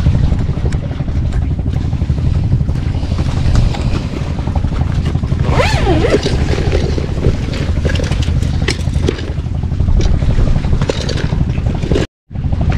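Small boat's engine running steadily under way, a continuous loud rumble with wind over the microphone.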